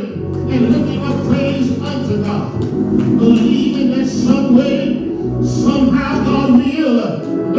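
Gospel singing with music: several voices singing together over a steady accompaniment.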